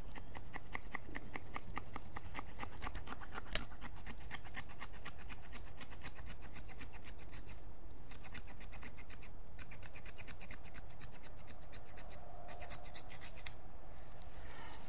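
Quick, even scraping strokes of a blade cutting through a deer during field dressing. The strokes stop shortly before the end.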